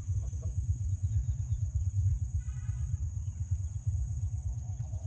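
Low, uneven rumble of wind buffeting the microphone outdoors, under a steady high-pitched insect drone. A short pitched call sounds briefly about two and a half seconds in.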